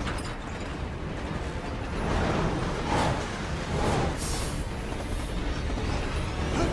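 Commuter train running on the tracks: a steady low rumble, with a brief hiss about four seconds in.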